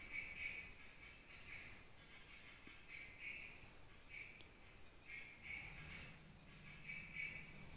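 Faint bird calls repeating every couple of seconds: a short high trill alternating with a lower chirping note.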